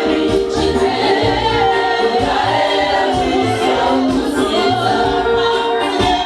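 Choir singing gospel worship music, with a low pulse beneath the voices.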